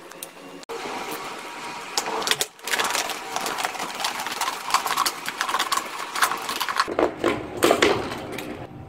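A thin plastic drink bottle being cut with a utility knife: rapid crackling and clicking as the blade saws through the plastic, with a brief pause about two and a half seconds in.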